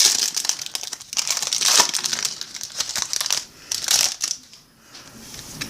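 Foil wrapper of a baseball card pack crinkling and crackling as it is handled and torn open, with the cards inside being shuffled.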